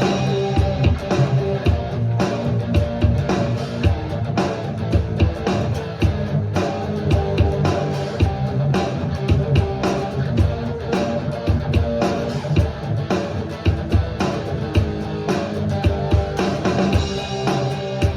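Rock-style music: guitar playing over a drum kit keeping a steady beat.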